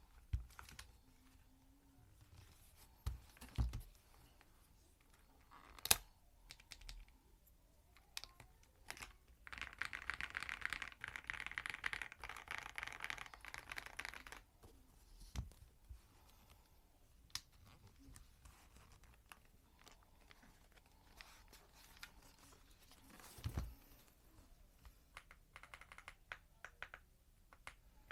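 Mchose K99 mechanical keyboard with Kailh switches and Cherry-profile keycaps being typed on. There are scattered single keystrokes and a few heavier thumps, then a fast run of typing about ten seconds in that lasts some five seconds.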